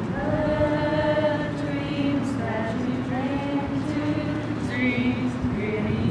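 A small group of young women singing together in held, sustained notes, with a steady low rumble of wind underneath.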